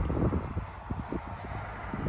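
Uneven low rumble of wind buffeting the microphone outdoors.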